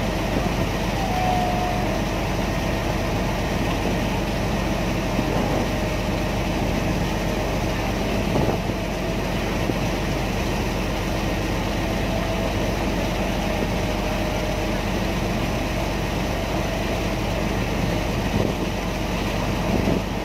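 River ferry's engine running steadily under way, an even drone that holds without change.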